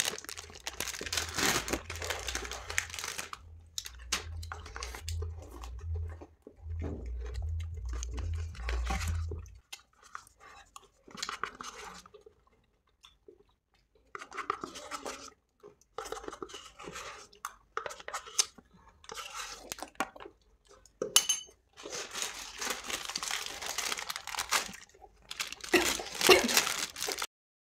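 Close-up eating sounds: paper cone wrappers of Amul Tricone ice creams crinkling and tearing as they are peeled, with chewing, crunching of wafer cone and licking. A low hum underneath stops abruptly about ten seconds in.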